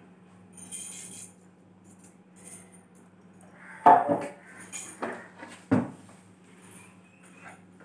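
A few sharp knocks and clatters with light rustling between them as a long-handled broom is worked against the wall and ceiling; the loudest knock comes about four seconds in and another just before six seconds.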